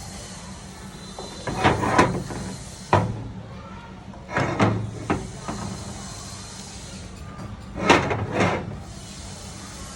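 Short knocks and clatters over a steady low hum. They come in three groups: about two seconds in, around four to five and a half seconds in, and about eight seconds in.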